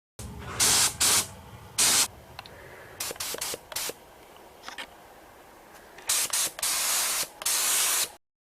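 Paint being sprayed in separate bursts: three short bursts in the first two seconds, a few quick puffs a little later, then longer passes near the end.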